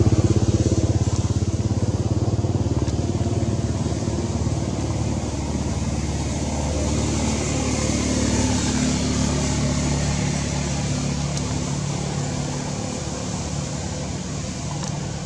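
An engine runs steadily with a fine regular pulse, its pitch shifting a little midway, and the sound slowly gets quieter.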